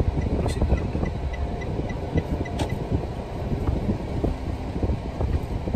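A car on the move, heard as a steady low rumble of road and engine noise.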